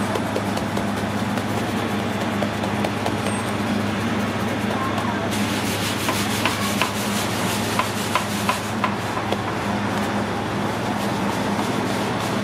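Steady low machine hum of a busy pizzeria kitchen. Midway there is a spell of brighter hiss with several light taps and pats as hands press pizza dough out on a marble counter.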